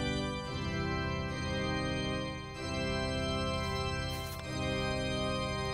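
Background music: slow, held chords that change about every second or so.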